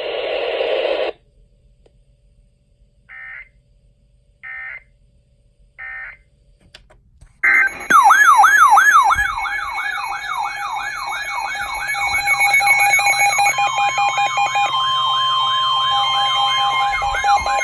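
Three short chirps of EAS/SAME data, each about a second apart, then a loud weather-radio alert alarm that warbles up and down about two and a half times a second. A steady tone joins past the halfway point. The chirps and alarm signal a new warning coming in.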